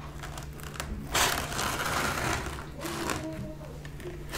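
A slice of pizza being torn in half by hand close to the microphone: a noisy tearing sound that starts about a second in and lasts about a second and a half.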